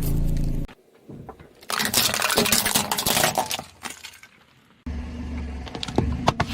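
Brittle objects crushed under a car tyre: a dense run of crackling and snapping for about two seconds, with low car engine hum before and after and a few sharp cracks near the end.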